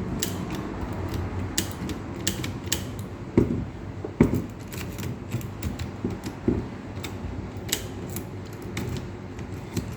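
Irregular metal clicks and rattles of a key being worked in a Toyota ignition lock cylinder that is stuck and will not turn, with two louder knocks a few seconds in.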